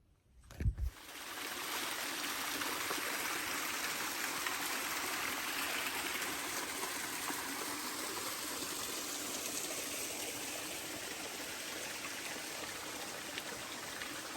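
A stream running steadily, with a rushing sound, after a short handling thump about half a second in.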